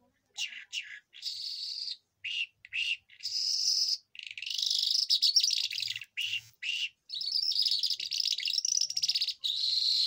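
A lark singing from its cage: a fast string of high, warbled phrases with short breaks between them, the phrases growing longer after the first few seconds.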